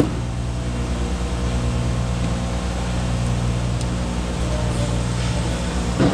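Steady low mechanical hum, with a few faint light clicks.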